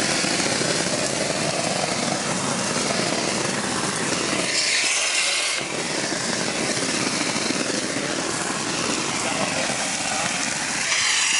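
Shotcrete spraying: concrete blown by compressed air out of the hose nozzle with a loud, steady hiss over the rapid pulsing drone of the pumping machinery. About five seconds in and again near the end the pulsing briefly drops away, leaving a brighter hiss of air from the nozzle.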